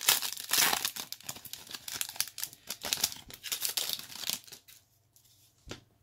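Foil wrapper of a 2024 Topps Series 1 baseball card pack torn open and crinkled: a rapid crackling that stops about four and a half seconds in, followed by a single short tap near the end.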